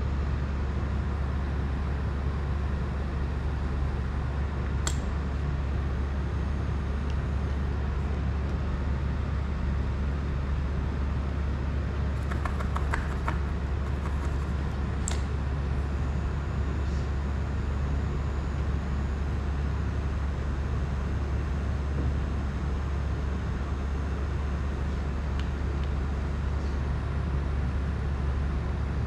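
A steady low hum throughout, with a few small clicks and taps of hand tools at the workbench: one about five seconds in, a quick run of ticks near the middle, and another click soon after.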